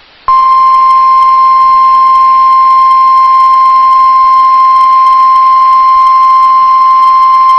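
NOAA Weather Radio 1050 Hz warning alarm tone: one loud, steady, unbroken beep that starts abruptly about a third of a second in. It is the weekly test of the alarm that switches on weather-alert receivers.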